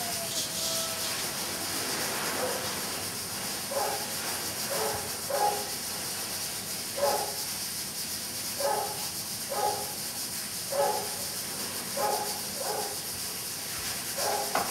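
A dog barking about ten times, in short single barks spaced roughly a second apart, over a steady hiss.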